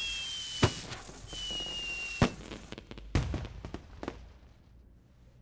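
Fireworks sound effects: two whistling rockets, each falling slightly in pitch and ending in a sharp bang, then a burst of crackling pops that fades away.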